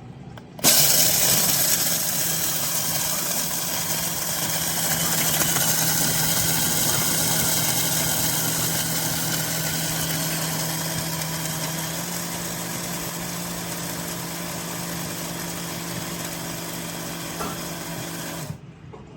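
TWOMEOW one-touch electric blade coffee grinder running: the motor starts abruptly, whirs steadily while grinding for about eighteen seconds, and cuts off suddenly. Its hum shifts slightly in pitch about twelve seconds in.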